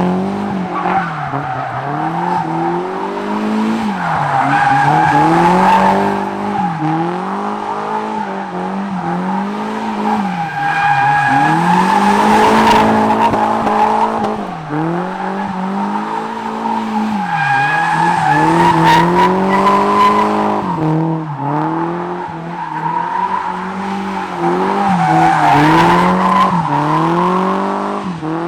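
Nissan S13's KA24 four-cylinder engine revving up and dropping back over and over, about every two seconds, with tyres squealing steadily as the car drifts on its welded differential.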